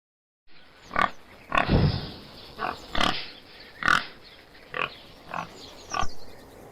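Pig grunting and squealing in a run of about eight short, separate calls, starting about half a second in, over a faint steady background.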